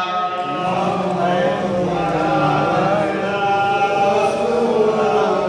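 A man's voice chanting a devotional recitation in long, held melodic lines that slowly rise and fall.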